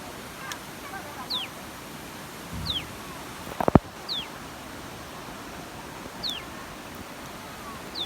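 A bird calling over and over, each call a short whistle falling in pitch, five times about a second and a half apart, over a steady hiss of rushing water. A short sharp knock a little before halfway is the loudest sound.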